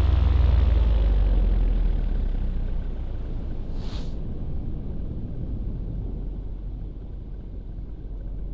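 Paramotor engine throttled back, its drone dropping in pitch and fading over the first couple of seconds into a low rumble and steady wind rush. There is a short rush of noise about four seconds in.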